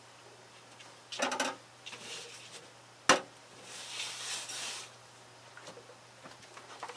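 Kitchen clean-up at a wooden counter: a short clatter of utensils about a second in, then one sharp knock as a knife is set down just after three seconds, followed by a cloth wiping across the counter for about a second. A low steady hum runs underneath.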